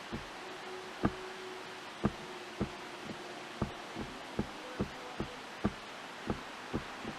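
Steady wind hiss through leafy trees, with soft low thumps about two a second, slightly uneven.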